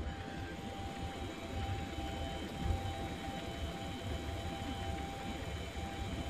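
Mini metal lathe running with its chuck spinning and no cut being taken: a steady motor and drive whine over a low hum.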